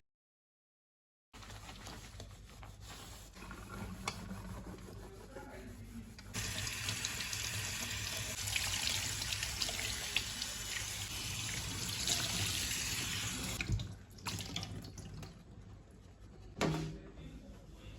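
A water tap running into a sink for about seven seconds, turned on and then off abruptly, with quiet room ambience either side and a short thump near the end.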